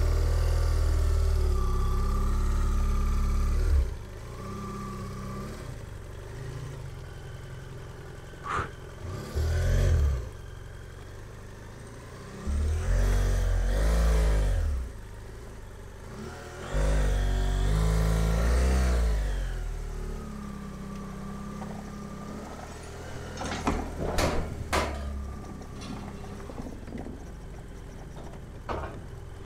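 BMW F800GS parallel-twin motorcycle engine run in several bursts of throttle a few seconds long, revs rising and falling, dropping back to a low tick-over in between as the bike creeps across a wooden-plank and steel-grate bridge. A few sharp knocks come through, twice about eight seconds in and again near the end, from the tyres going over the planks.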